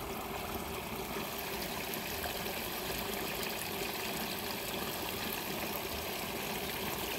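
Steady trickle of water running in a small, shallow irrigation ditch.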